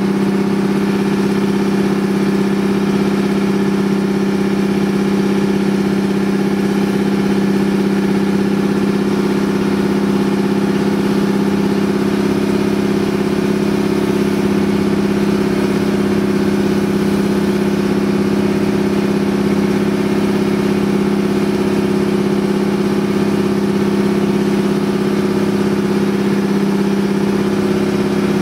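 Outrigger boat's engine running steadily at an unchanging pitch while underway, over a hiss of water and spray.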